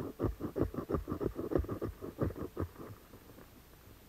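Quick, uneven scratchy scraping and rustling strokes, several a second, from dry tinder being worked by hand; they die down about three seconds in.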